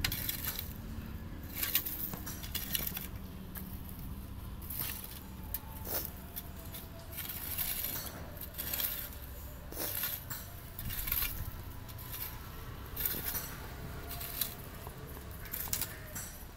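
Steel hand weeder dragged through dry, gritty soil in about a dozen pulls, one every second or so. Each pull is a sharp scrape with small metallic clinks as its head cuts weeds and loosens the earth.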